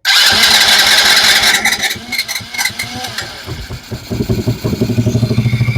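Small Chinese kids' ATV engine being cranked by its electric starter, sputtering, then catching about four seconds in and settling into a steady, pulsing run.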